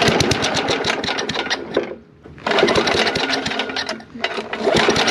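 Tecumseh TVS90 3.5 hp vertical-shaft lawn mower engine pull-started at wide-open throttle, coughing and sputtering into short bursts of rapid firing that die out, twice, then again near the end. It is the stumble of a fuel-starved engine, which the owner puts down to a swollen carburetor needle seat not letting fuel into the bowl.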